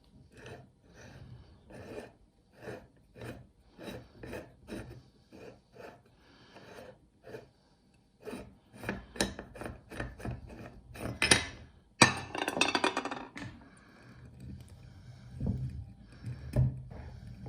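Meat grinder crushing hard candy lollipops: a regular run of rasping crunches, about two a second, with a louder stretch of dense crackling about twelve seconds in and a few low thuds near the end.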